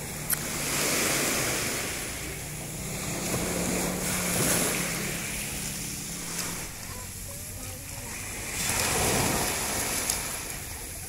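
Small surf washing up over a pebbly sand beach and draining back, swelling in three waves about four seconds apart. A couple of sharp clicks stand out from the wash.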